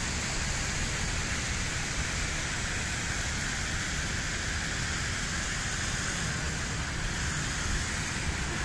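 Steady rush of a shallow mountain river running over rocks.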